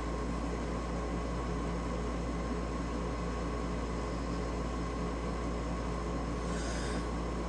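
Steady hiss with a low electrical hum from a running household appliance, unchanging throughout.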